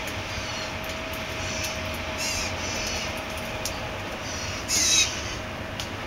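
Blue jay fledglings calling: a string of short, high calls about once or twice a second, with the loudest call about five seconds in, over a steady faint hum.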